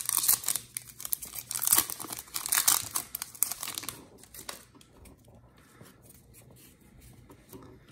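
Trading-card pack wrapper crinkling and tearing as a 2020 Donruss football pack is opened and the cards are pulled out. After about four seconds it gives way to quieter light rustles and clicks of the cards being handled.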